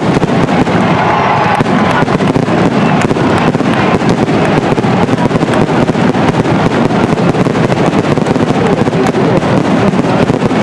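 Dense, continuous crackling and popping that goes on without a break.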